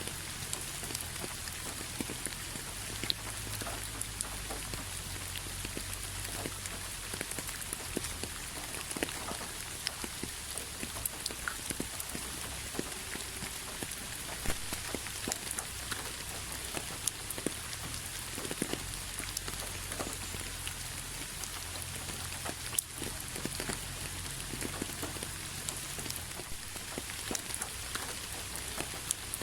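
Steady rain falling, with many separate drops striking a surface as short clicks over an even hiss, and a low rumble underneath.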